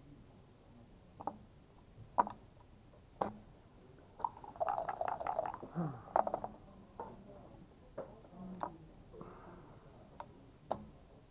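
Backgammon checkers and dice clicking on a wooden board: single sharp clicks every second or so, with a rapid rattling run of clicks in the middle, like dice being shaken and thrown.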